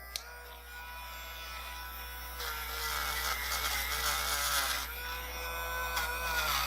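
A small high-speed electric rotary tool, spun up just before, runs at a steady pitch. From about two and a half seconds in to near five seconds, and again near the end, a scrubbing hiss is added and the pitch dips slightly as the tool is pressed against the die-cast toy car body.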